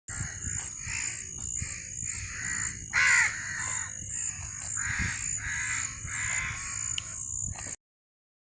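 Crows cawing in a quick series of harsh calls, about two or three a second, the loudest about three seconds in, over a steady high-pitched buzz. The sound cuts off abruptly near the end.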